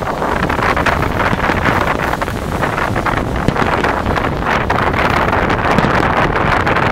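Fireworks barrage: many shells bursting in quick succession, their bangs and crackle running together into a steady din, with wind buffeting the microphone.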